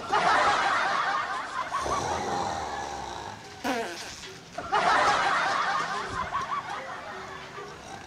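A group of people laughing in two bursts, each starting loud and fading over a couple of seconds, with a short rising sound between them.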